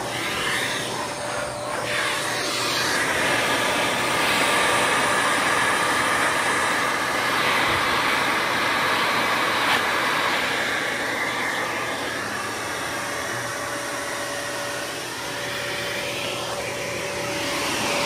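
Dyson Cinetic Big Ball upright vacuum running with its hose and tool in use: a steady suction noise with a faint whine, a little louder for a stretch in the middle.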